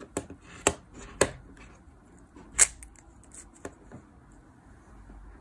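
Yulong V2 Magnetic speed cube being turned by hand: sharp plastic clacks as its layers snap round, five irregular clicks, the loudest about two and a half seconds in, stopping about four seconds in.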